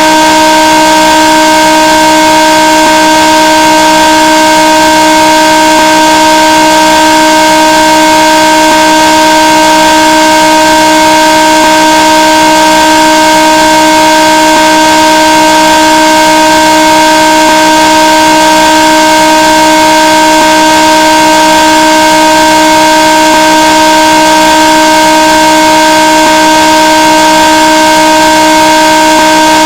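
A 'raging' meme sound effect: a very loud, harsh, distorted chord of several steady tones held without any change.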